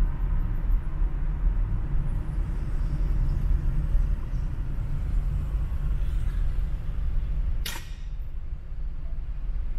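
Steady low rumble of a car driving in city traffic, with one short, sharp hiss a little under eight seconds in.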